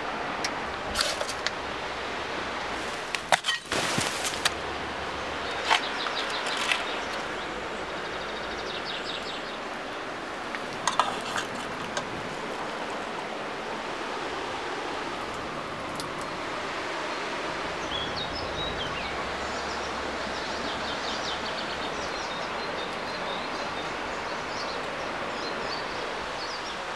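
Steady rushing of a flowing river, with a few sharp knocks and clicks of hand work with a knife and wood in the first half, and short, repeated high chirping calls at several points.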